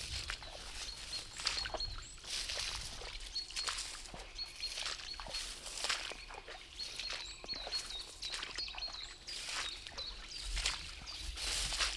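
Footsteps through wet forest floor, with irregular rustling and squelching steps. Small birds chirp now and then.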